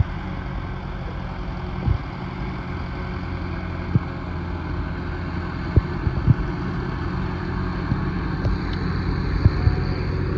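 Tractor's diesel engine running steadily at low revs, with a few short sharp knocks over it.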